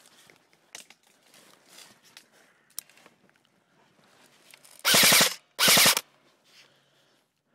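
Two short full-auto bursts from an M4-style airsoft rifle, each about half a second long and a moment apart, the rapid shots running together.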